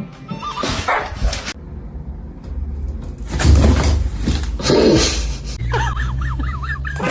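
Animal sounds, tagged as dog barks and whimpers, over background music, with abrupt changes where clips are cut together.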